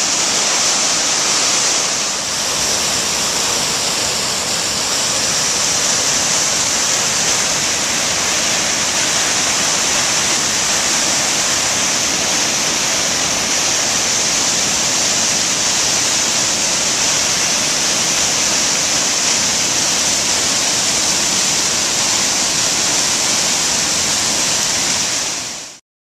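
Waterfall pouring over rock into white water, a loud, steady rush of falling water that fades out at the very end.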